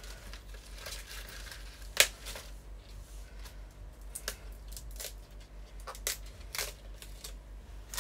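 Spring green leaves being ripped off their stalks by hand: irregular rustling and tearing with a few crisp snaps, the loudest about two seconds in.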